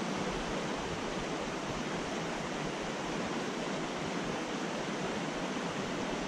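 Mountain trout creek rushing through riffles: a steady, even rush of water.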